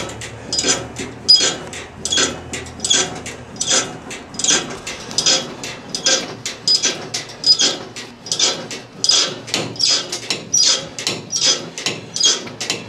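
Motorcycle lift being jacked up under a motorcycle, with a steady run of sharp mechanical clacks from the lift's pumping or ratcheting, about one every three-quarters of a second.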